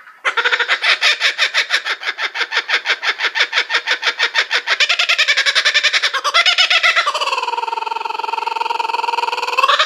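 Laughing kookaburra call: a long run of rapid chuckling notes, about eight to ten a second, that give way to a long held note which dips in pitch and rises again near the end.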